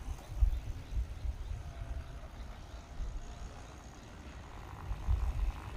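Gusty low rumble of wind buffeting the microphone during a ride on an electric dirt bike, swelling again near the end.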